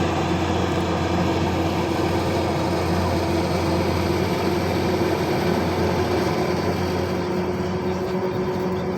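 Rice harvesting machine's engine running steadily at a constant speed, a low hum with a steady higher drone over it.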